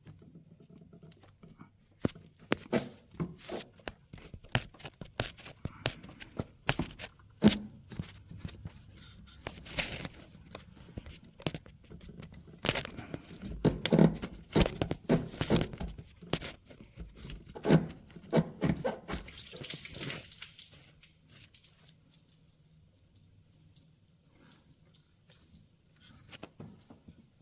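Irregular clicks, knocks and scrapes of hand work on the heater hose and its spring clamp, busiest over the first two thirds and dying down near the end.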